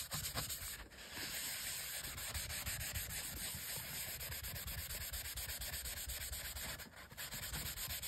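A sanding pad rubbed by hand over a steel axe head in quick back-and-forth strokes, scuffing down a fresh coat of cold bluing to even out the finish. The rubbing stops briefly twice.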